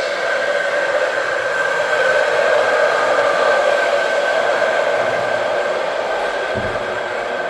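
Electric saw running steadily through a deep cut, a continuous motor whine over gritty cutting noise.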